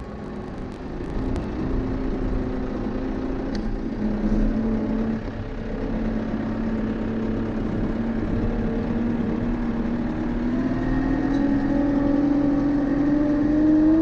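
Tractor's diesel engine running, its pitch climbing slowly and steadily as the revs build. A few light clicks sound in the first second or two.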